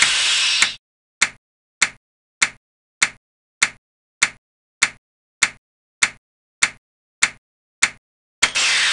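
Animation sound effects: a sharp click about every 0.6 s, one for each clock tick counted up by the running process, with a burst of hiss lasting about a second at the start and again near the end as the processes swap places in the ready queue.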